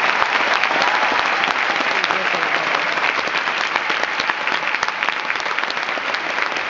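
A large audience applauding, many hands clapping at once in a steady, loud stream that eases off a little near the end.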